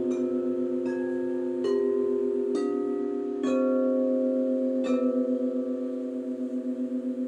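Frosted quartz crystal singing bowls struck one at a time with mallets, about six strikes roughly a second apart stepping through different notes, their long rings overlapping. The lowest note pulses steadily, and the ringing fades out after the last strike about five seconds in.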